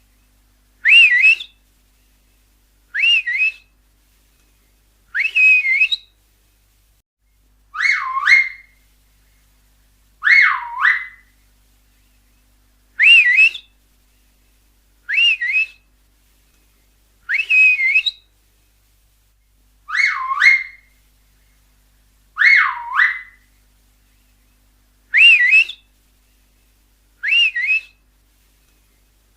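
Finger whistles: a string of about twelve short, loud whistles, one every two to two and a half seconds. Some swoop down in pitch and back up, and others are briefer and higher.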